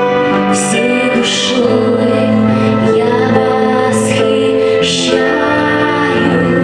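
Christian worship song: a woman singing a slow melody with long held notes over instrumental accompaniment.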